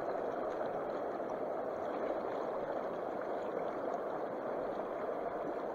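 Creek water running steadily over a rocky streambed, an even rushing that holds at one level.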